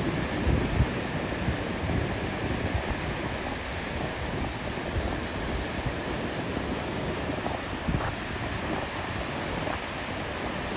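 Ocean surf breaking and washing in, with wind buffeting the microphone in low, gusty rumbles.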